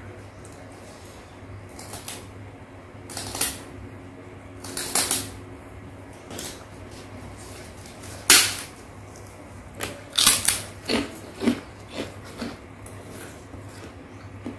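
Crisp white crackers (kerupuk) snapped into pieces by hand: a series of sharp cracks, the loudest about eight seconds in and several more in quick succession a little after ten seconds. A low steady hum runs underneath.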